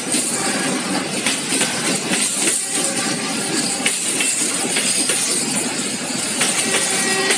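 Freight train of open-top gondola wagons and container flatcars rolling past: steady rolling noise of steel wheels on the rails, with occasional wheel clicks.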